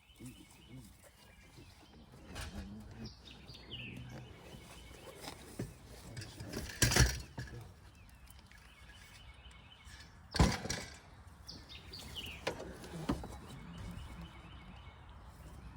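Scattered knocks and clunks, the two loudest about seven and ten seconds in, with birds chirping now and then.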